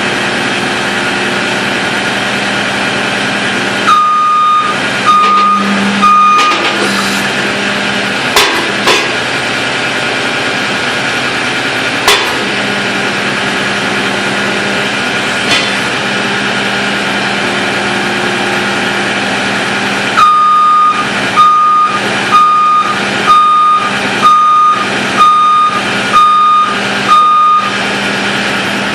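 John Deere skid steer's diesel engine running steadily, with its backup alarm beeping about once a second: three beeps about four seconds in and eight more near the end, as the machine reverses. A few sharp clicks come in between.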